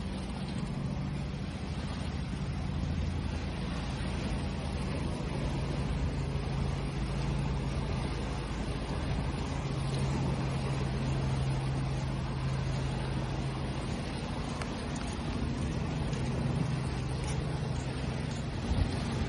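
Continuous wash of sea waves with a low, steady motor hum underneath, and one short thump near the end.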